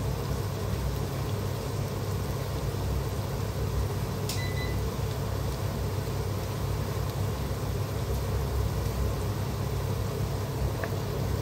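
Onions frying gently in oil in a pot over a gas burner, under a steady low hum. A short light clink with a brief ring about four seconds in.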